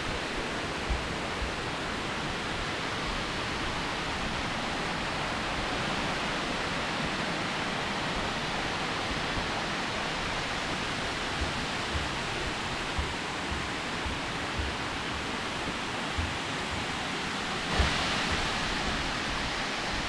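Steady rush of water from nearby cascading waterfalls, with a few soft low thumps and a brief swell of brighter noise near the end.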